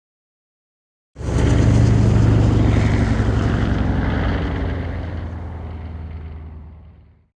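Star Wars Trade Federation MTT (Multi-Troop Transport) engine sound effect, heard as the hovercraft passes by: a deep steady engine hum under a wide rushing wash, starting suddenly about a second in and fading away over about six seconds.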